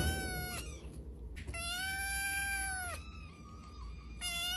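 Kitten meowing: a short meow ending about half a second in, a long drawn-out meow of about a second and a half, and another beginning near the end.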